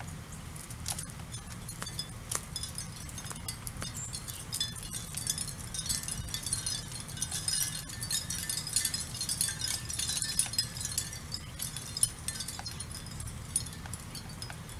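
A flock of sparrows chirping, many quick high notes overlapping, busiest in the middle, over a steady low background rumble.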